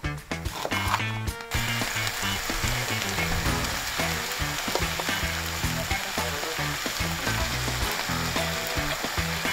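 A knife chops through red bell pepper on a bamboo cutting board for the first second or so. Then minced-meat patties, spaghetti, onion and pepper pieces sizzle steadily in a frying pan.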